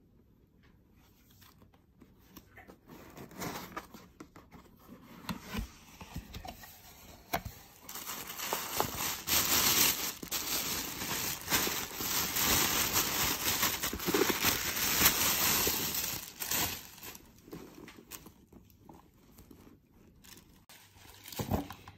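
Packaging being handled: a cardboard box opened, then a clear plastic bag crinkling loudly as it is pulled off a leather handbag. It builds from faint rustles to a loud stretch of about eight seconds in the middle, then dies down to scattered small rustles and clicks.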